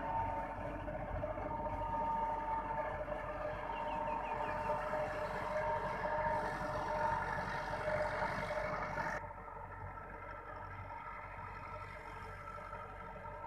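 Massey Ferguson 385 tractor's four-cylinder diesel engine running steadily as it drives a rotavator through a flooded field. About nine seconds in, the sound drops suddenly and becomes fainter and more distant.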